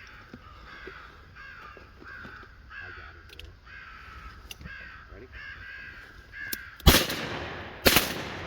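Crows cawing in a steady string of repeated caws, then two shotgun blasts about a second apart near the end.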